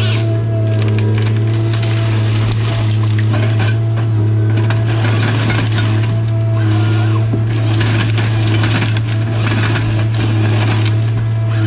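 Tigercat 855C harvester's engine and hydraulics running with a steady drone as heard from inside the cab, while the LogMax 7000 harvester head feeds and delimbs a hardwood stem with irregular cracking and crunching of wood and branches.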